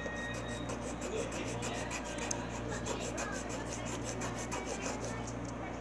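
Quick back-and-forth rubbing and scratching, several short strokes a second, kept up steadily.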